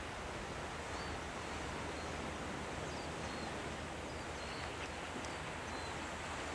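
Steady rushing outdoor noise of wind and sea on a rocky shore, with a small bird giving short high chirps about once a second.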